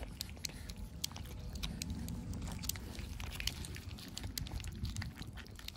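Several cats eating dry kibble, with many small, irregular crunches and clicks from chewing, over a low rumble.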